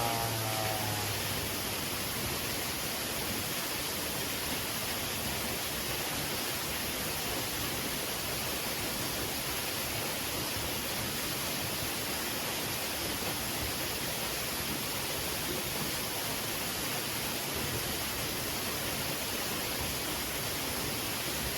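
A waterfall pouring steadily: an even, unbroken rush of falling water.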